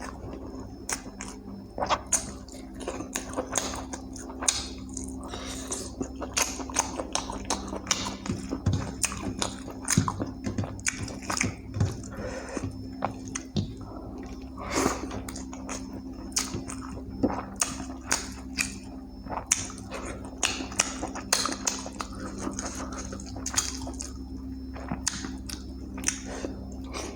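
A person eating chicken curry and rice close to the microphone: wet chewing and mouth smacks in many short, irregular clicks, over a steady low hum.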